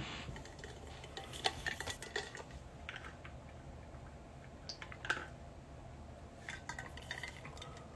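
Scattered light clicks and clinks of small hard objects being handled on a table, coming in short clusters over a faint steady hum.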